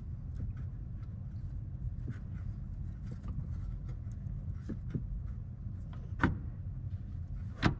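Light metallic clicks and two sharper clunks, about six and seven and a half seconds in, as the steering shaft is worked back up onto its splined coupling under the dash, over a steady low hum.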